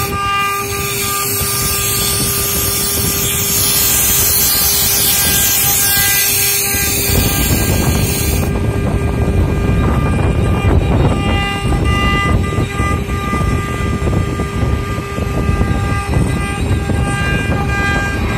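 Water-cooled spindle of a CNC router running with a steady whine of several tones while carving a board. A loud high hiss of cutting covers the first eight seconds or so, then drops away, leaving the spindle whine and machine hum.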